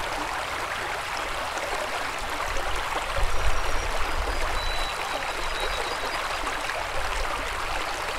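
Shallow river running over a stony bed: a steady rush of flowing water, with a brief low rumble swelling about three seconds in.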